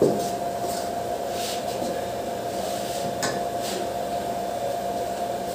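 Steady hum with a hiss behind it, with a few brief soft scrapes of a fork stirring flour in an aluminium pan.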